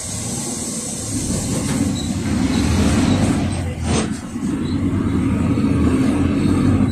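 Cabin noise of a PAZ 4234-05 bus under way, mainly the low rumble of its Cummins ISF3.8 four-cylinder turbodiesel pulling, building over the first few seconds. There is a brief dip in the engine sound with a click about four seconds in.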